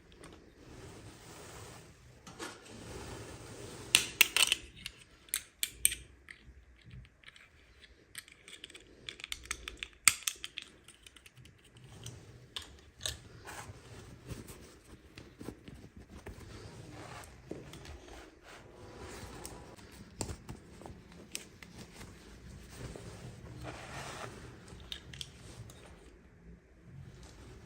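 Hands unboxing small plastic toys: scattered clicks, taps and crinkles of plastic packaging and pieces being handled and opened, with a loud cluster of clicks about four seconds in and another about ten seconds in.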